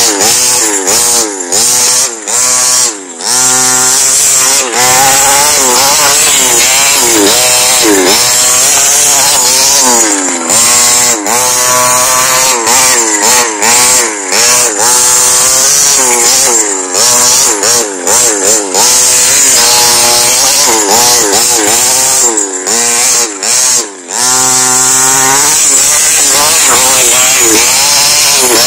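Radio-controlled 4WD off-road buggy's motor revving hard, its high-pitched whine rising and falling in pitch over and over as the car is driven fast over dirt.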